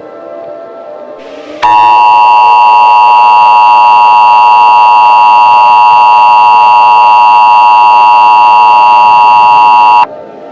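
Emergency Alert System attention signal: a loud, steady two-tone alarm that starts about a second and a half in, holds unchanged for about eight seconds and cuts off suddenly, signalling that an emergency broadcast message follows.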